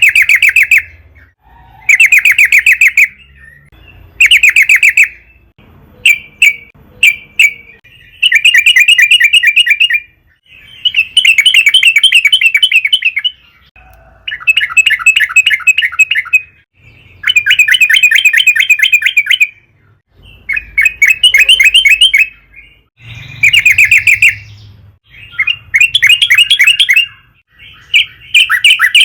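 Yellow-vented bulbul (trucukan) singing loudly in repeated bursts of rapid, bubbly chattering notes. Each phrase lasts one to three seconds, with short pauses between. This is the vigorous 'gacor' song used to lure other bulbuls into answering.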